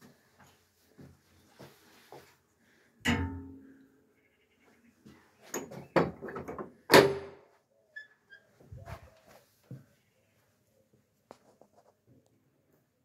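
Iron latch and fittings of an old wooden church door being worked open: a loud metallic clank with a short ringing tail about three seconds in, then a rapid run of clacks a couple of seconds later, the last and loudest ringing briefly, and a few softer knocks after.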